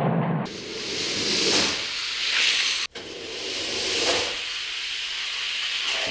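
Rushing hiss of die-cast toy cars rolling down plastic Hot Wheels track lanes, swelling a few times and breaking off for an instant about three seconds in.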